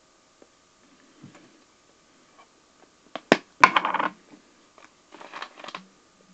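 Handling noises close to the microphone: two sharp knocks, then a loud rustle. Near the end comes a short spit into a plastic soda bottle used as a dip spitter.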